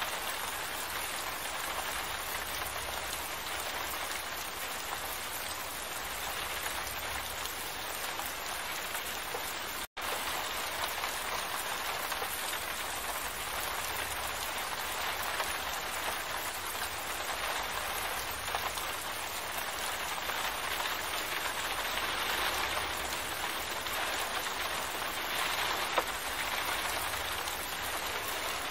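Steady rain falling, an even hiss of drops, with a momentary cut to silence about ten seconds in and a single sharp tick near the end.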